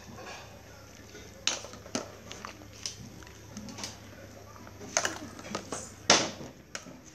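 Metal ladle knocking and scraping against an aluminium cooking pot while stirring and scooping soup: a string of irregular clinks, the loudest about six seconds in.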